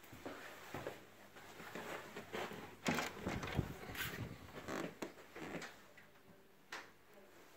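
Irregular soft knocks and rustles from footsteps and the handheld phone being moved while walking through a doorway into a bedroom. They bunch most densely about three to four seconds in and thin out near the end.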